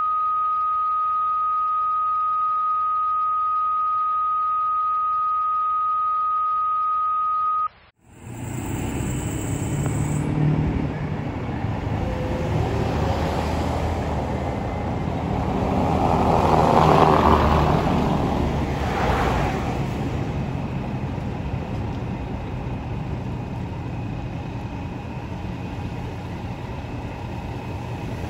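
A steady high electronic tone held for about eight seconds, then a fire engine tanker's diesel engine running with a low rumble at the station door. The engine sound swells louder for a couple of seconds midway, then settles.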